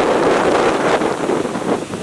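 Strong wind blowing in gusts, with wind buffeting the microphone; the level dips briefly near the end.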